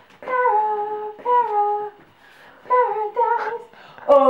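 A young girl singing in short wordless phrases, each high note sliding down in pitch, with pauses between them. Near the end a louder, lower held hum begins.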